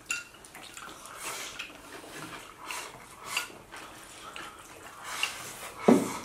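People eating at a table: slurping and sipping from porcelain bowls, with chopsticks clicking against the bowls. A louder knock comes near the end.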